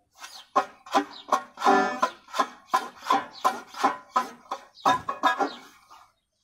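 Banjo being plucked, a run of sharp, briefly ringing notes at about three a second that stops about six seconds in.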